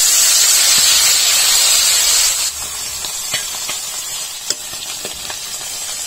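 Turmeric- and garlic-coated bami (spiny eel) pieces dropped into hot mustard oil in a kadhai, sizzling loudly. About two and a half seconds in the sizzle drops to a steadier frying hiss with scattered pops.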